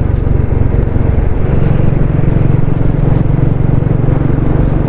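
Motorcycle engine running steadily as the bike cruises along the road, heard close up from the rider's seat.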